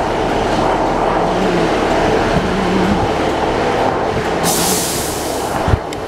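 Class 150 Sprinter diesel multiple unit running, a loud steady rumble with a wavering engine drone. A burst of high hiss comes about four and a half seconds in and lasts about a second, followed by a sharp thump near the end.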